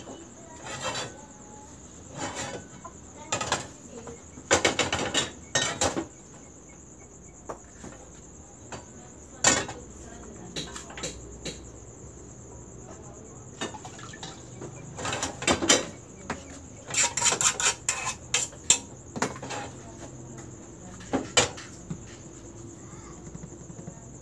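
Small metal frying pans and a ladle clattering and clinking on a gas stove in irregular bursts as crepe batter is ladled and the pans are handled, with a steady high-pitched trill running underneath.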